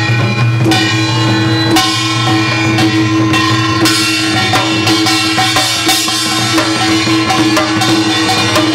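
Korean samul nori percussion playing steadily: metallic clangs from a small kkwaenggwari gong and the deep ringing of a large jing gong, with beats on a buk barrel drum. Several sharp strikes cut through, about two seconds in and again near four seconds.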